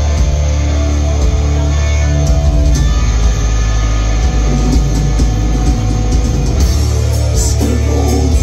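Live metal band playing loud, with distorted guitars and bass holding long, heavy chords over a strong low end.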